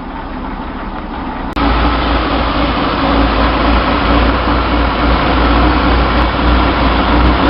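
Chevy 230/250 straight-six engine idling steadily with its two-barrel Weber carburettor; about a second and a half in the sound cuts abruptly to a much louder run of the engine with a strong low rumble and a loud hiss across the top.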